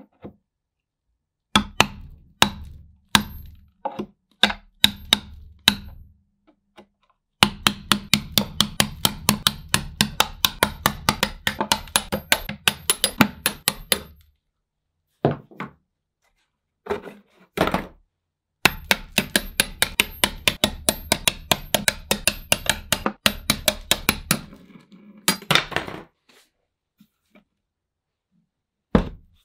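Hammer tapping a punch against the rusty metal hoops of an antique wooden ice cream maker bucket to drive them off. Sharp ringing metal strikes: a few spaced blows, then two long runs of three or four taps a second, then a few single strikes near the end.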